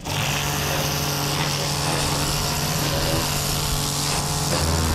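Pressure washer running steadily: the water jet hissing onto the boat's fibreglass deck over the steady hum of the machine's pump.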